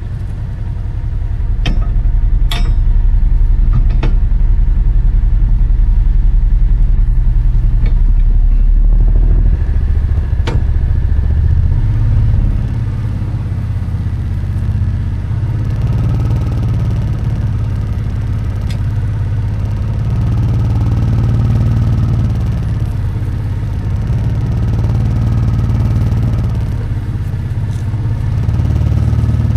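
Engine running steadily under load while a homemade potato digger works the potato rows, with a few sharp clanks in the first ten seconds. The engine note shifts about ten seconds in.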